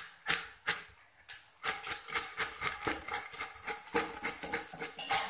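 Long wooden pestle pounding hot, freshly fried peanuts in a large wooden mortar. There are a few separate strokes, then from about a second and a half in a quick, steady run of strokes as the peanuts are crushed.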